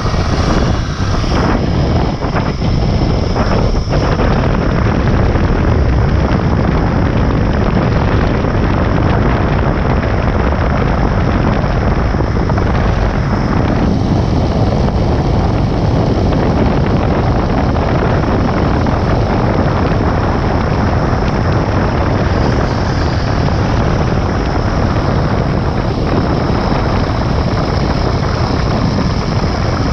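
Wind rushing and buffeting over a rider-worn camera's microphone during a fast zipline descent, with the zipline trolley running along the steel cable as a steady high whir.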